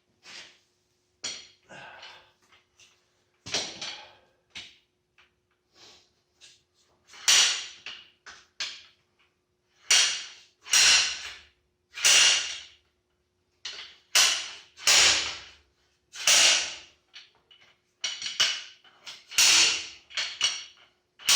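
Slide hammer striking again and again to pull a distributor seized in a Ford 351 Cleveland block: a few light metal clanks, then from about seven seconds in sharp ringing blows roughly once a second. The distributor is fused to the block and will not come out.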